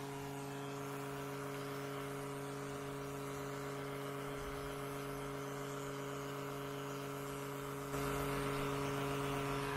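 Small electric oil extraction pump running steadily with a constant hum, sucking the engine oil out and discharging it through a hose into a plastic canister. It gets a little louder about eight seconds in.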